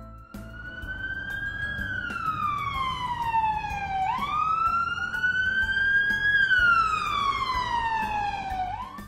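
Emergency-vehicle wail siren going through two slow cycles, each rising and then falling in pitch over about four and a half seconds, with a low rumble beneath it.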